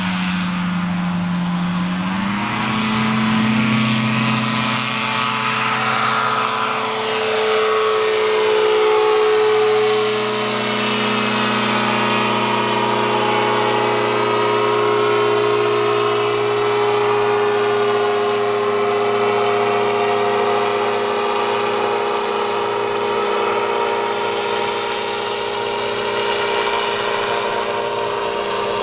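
Engine and caged pusher propeller of a powered parachute at takeoff power, the pitch rising as it throttles up about two seconds in. It then runs steadily at full power while climbing, its pitch sweeping down as it passes overhead.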